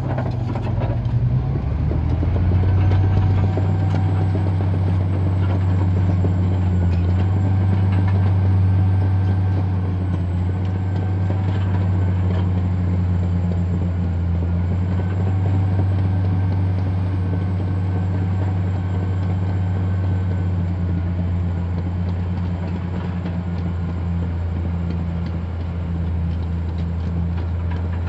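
Caterpillar D10T bulldozer's C27 V12 diesel engine running steadily under load as the dozer pushes soil, a deep, even drone that grows louder about two seconds in.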